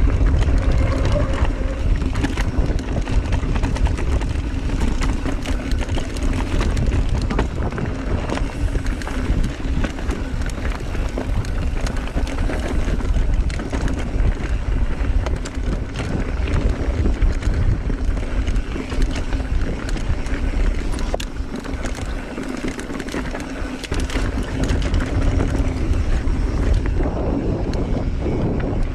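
Wind buffeting the microphone of a mountain biker riding a rocky dirt trail, with the clatter and knocks of the bike and its tyres over rock throughout.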